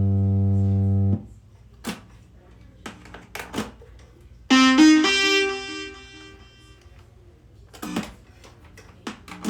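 Korg RK-100S keytar synthesizer presets being auditioned: a held low synth note that stops about a second in, a brief bright synth tone with stepping pitch around the middle, and short clicks in between.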